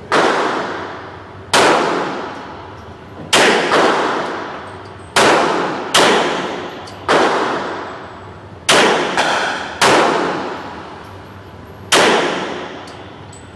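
Glock pistol being fired, about nine single shots spaced irregularly a second or two apart, each with a long echoing decay.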